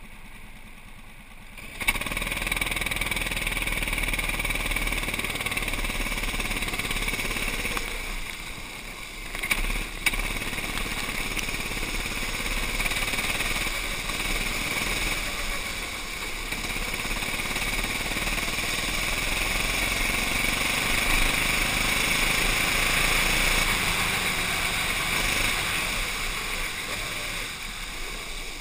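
Racing kart engine quieter for about two seconds, then rising sharply to full throttle and running hard. It eases briefly about eight seconds in, then picks up again.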